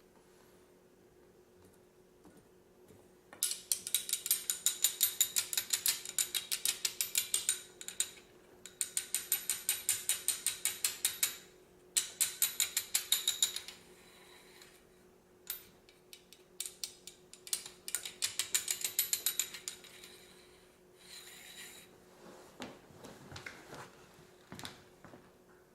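Hand ratchet clicking in rapid, even runs, about eight to ten clicks a second, four runs with short pauses between, then a few softer taps and knocks near the end.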